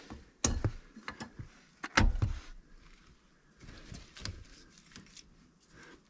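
Scattered clicks and knocks of a wiring harness and its plastic connectors being handled under a pickup's steering column, the loudest about two seconds in.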